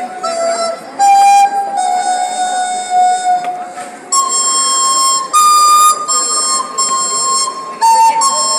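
A flute playing a slow melody of long held notes, one at a time, stepping between pitches and moving up to a higher group of notes about four seconds in.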